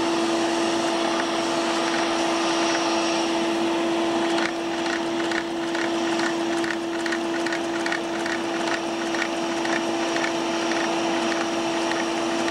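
Electric vacuum pump running with a steady hum, powering a Lego single-cylinder, double-acting beam engine. About four seconds in, a light rhythmic clicking begins, roughly two to three a second, as the engine cycles.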